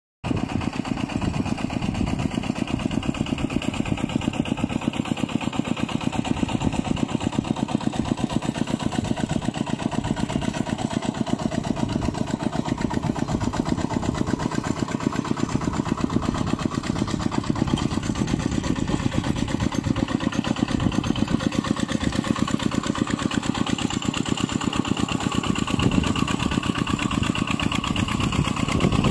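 A two-wheel walking tractor's single-cylinder diesel engine running steadily with a fast, even chug while it works a flooded rice paddy.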